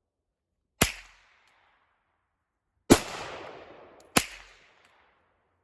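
Three rifle shots at uneven intervals. The second shot trails off over about a second.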